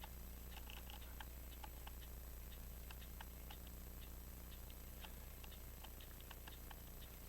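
Faint, irregular light clicks of tweezers and small steel watch parts being handled at the bench, about three a second, over a steady low hum.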